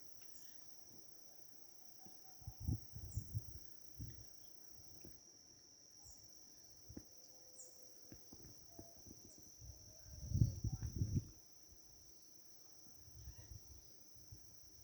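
Insects trilling steadily on one high pitch, with short high bird chirps every second or two. A few bursts of low rumble come and go, the loudest about ten seconds in.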